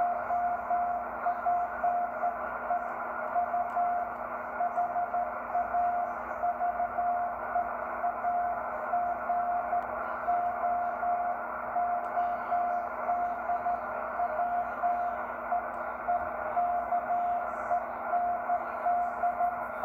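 Morse code (CW) heard through an amateur radio receiver: a single steady tone keyed on and off in dots and dashes, over the receiver's band hiss.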